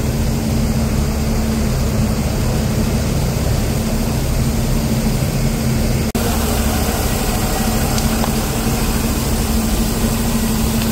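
Bus engine running with a steady low hum, broken by a brief dropout about six seconds in.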